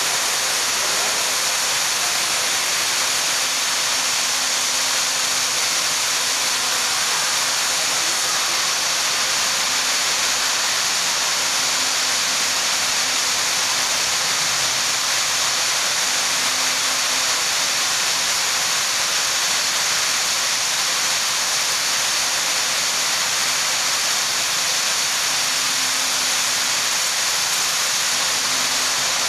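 A loud, steady rushing hiss like strong running water or blowing air, never changing, with a faint low hum coming and going beneath it.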